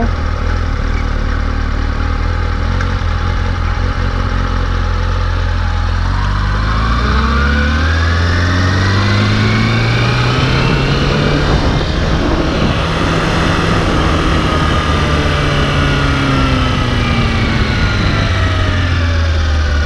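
Kawasaki Ninja 636's inline-four engine running steadily, then revving up as the motorcycle pulls away about six seconds in, holding speed and easing back down near the end.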